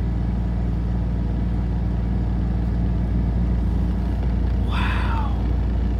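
Heavy rainstorm: a steady low rumble under the hiss of the rain. About five seconds in, a brief higher-pitched sound falls in pitch.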